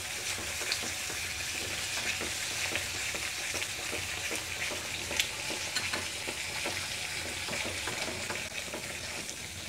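Curd-based masala sizzling and bubbling hard in a steel kadhai on raised heat, stirred briskly with a wooden spatula: a steady hiss with many small scrapes and pops. It is stirred fast to keep the curd from splitting.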